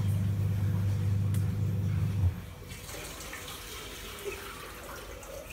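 Water running from a kitchen tap into a sink, under a low steady hum that cuts off abruptly a little over two seconds in; after that only quieter splashing and handling sounds remain.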